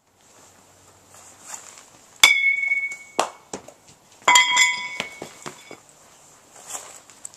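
Metal youth baseball bat struck with a ringing ping: one sharp hit about two seconds in, then a quick run of several ringing knocks about four seconds in, with a few light clicks between.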